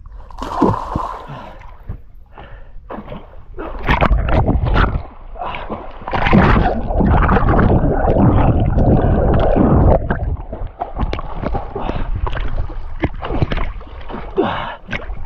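Water splashing and sloshing right at the microphone as a swimmer moves through a muddy stream, with irregular splashes. For about four seconds in the middle the microphone goes under water and the sound becomes a dense, muffled rushing.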